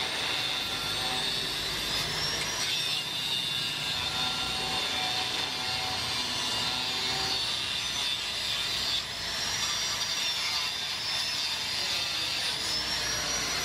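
Angle grinder grinding into a steel motorcycle frame tube, a steady metal-on-abrasive-disc grinding noise. The motor's high whine dips and recovers several times as the disc is pressed into the steel.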